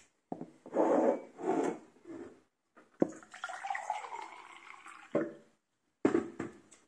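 Water poured into a glass for about two seconds, with sharp knocks of glassware set down on a stone kitchen counter before and after.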